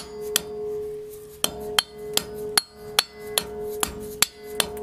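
A hammer tapping a dust cap onto the front wheel hub of a 2006 Toyota Tacoma, about a dozen sharp blows a little under half a second apart. A steady metallic ringing carries on between the blows.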